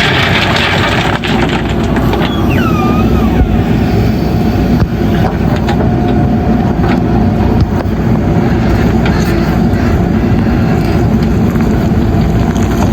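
JCB backhoe loader's diesel engine running steadily under load, with scattered knocks and clatter of gravel and bucket.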